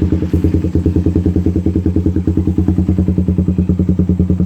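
Suzuki Raider 150 single-cylinder four-stroke with a Daeng Sai4 Stage 2 aftermarket exhaust and Keihin 28 mm round carburettor, idling steadily. The exhaust gives a loud, even pulsing of about ten beats a second, with no revving.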